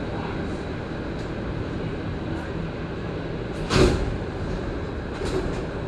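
Montreal Metro MR-73 rubber-tyred train coming to a stop at a station: a steady rumble, with one sharp knock about four seconds in.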